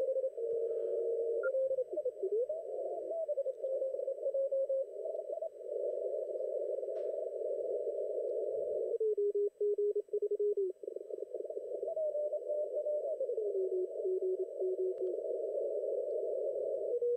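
Amateur radio transceiver's receiver audio through a narrow CW filter: a band of hiss carrying Morse code tones from a pileup of stations calling on 30 metres. Their pitches slide up and down as the VFO is tuned across the split.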